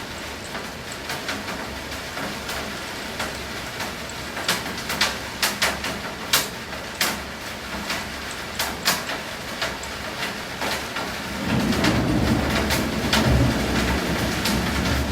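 Steady rain with many sharp, loud drops striking a hard surface close by. About eleven seconds in, a louder low rumble sets in and carries on.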